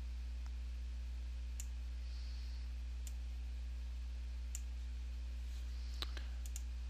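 Computer mouse clicking about five times, single clicks spaced a second or so apart, over a steady low electrical hum.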